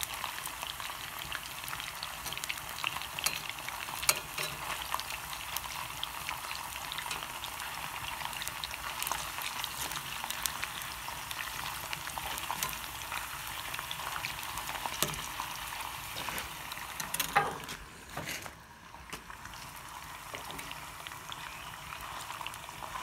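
Chunks of beaver meat frying in hot oil in a cast-iron skillet: a steady sizzle thick with small crackles and pops. About three-quarters of the way through there is a brief louder sound, and after it the sizzle is fainter.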